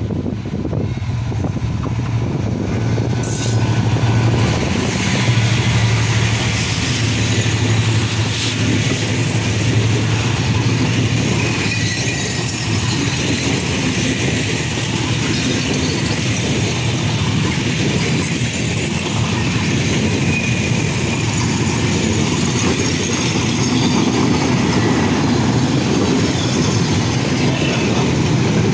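A diesel-electric locomotive hauling a passenger express passes close by, its engine drone strongest in the first several seconds. A long train of passenger coaches then keeps rolling past, wheels running steadily over the rails.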